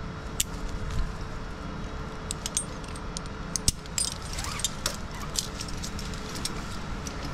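Crane engine running steadily under repeated light metallic clinks and jingles of metal hardware knocking together.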